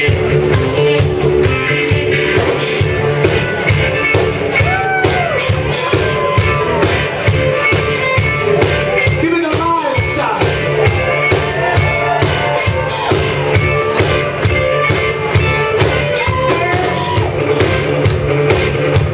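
Live rock band playing at full volume: drums keeping a steady beat under electric guitars and bass, with a singer's voice over the top.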